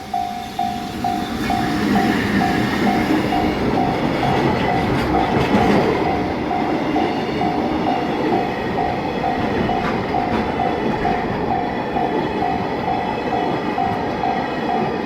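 Freight train of tank wagons rolling past, wheels rumbling and clacking over the rail joints, loudest in the first half. Over it a level crossing warning bell rings steadily, about two dings a second.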